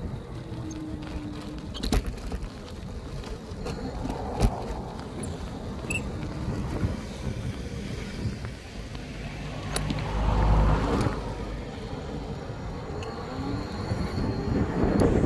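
Electric bike ridden over rough off-road ground: steady tyre and frame rattle with wind on the microphone, and a few sharp knocks from bumps, one heavier jolt about ten seconds in.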